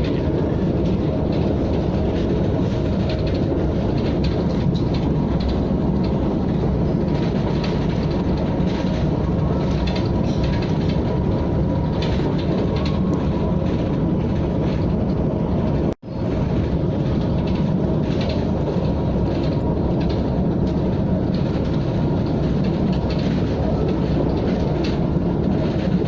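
KTM ETS electric train running along the line: a steady low rumble of rolling and rail noise with faint clicks. The sound cuts out for an instant about two-thirds of the way through, then carries on.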